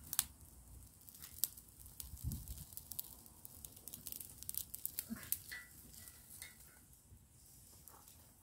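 Small fire of dry twigs and brushwood crackling, with irregular sharp snaps and pops, the loudest in the first second and a half.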